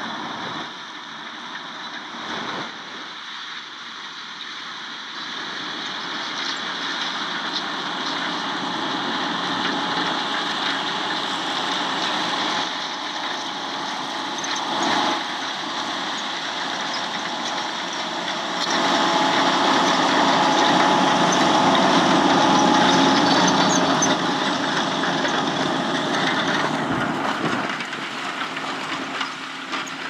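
Fendt 720 tractor engine running steadily under load as it pulls a five-furrow plough through stubble, getting louder for several seconds as the tractor comes close, then fading.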